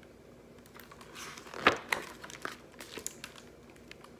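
Paper rustling and crinkling as a large picture book's page is turned: a short run of irregular crackles, the loudest near the middle.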